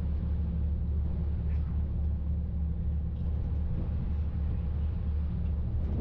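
Passenger ferry's engine running with a steady low rumble and hum.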